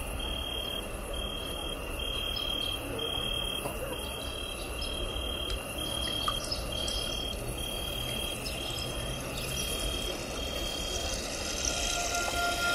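Insect chirping in a steady, even rhythm, about one and a half high chirps a second, over a low crowd murmur. Near the end the chirping fades and long held band notes begin.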